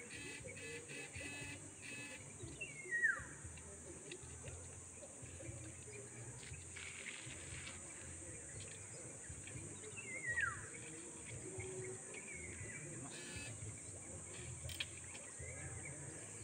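Faint outdoor ambience: a bird gives a short falling whistled call twice, about three seconds in and again about ten seconds in, over a steady high insect drone.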